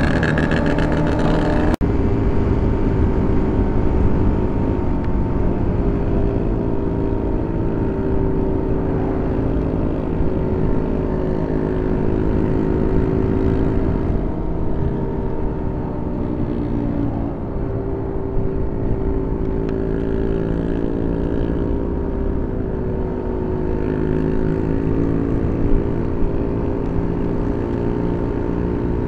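Motorcycle engine running at road speed, its pitch drifting slowly up and down with the throttle, over a steady rush of wind noise. There is a sudden cut about two seconds in.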